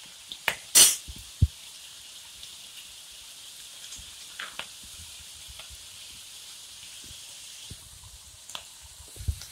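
Soaked chana dal deep-frying in hot oil on high flame: a steady, fairly quiet sizzling hiss, with a few sharp clicks and taps, the loudest about a second in.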